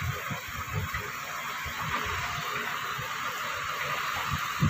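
Rain falling, a steady hiss heard from inside a vehicle, with scattered soft low thuds.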